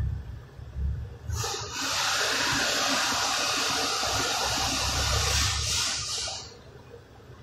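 A steady spraying hiss that starts about a second in, breaks off briefly, then runs on for about five seconds before fading, with low handling rumbles underneath.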